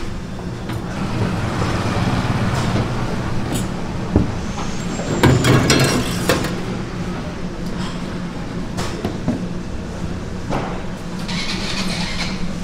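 A steady low motor hum runs under scattered clatter of dishes and metal utensils, which is densest and loudest about five to six seconds in.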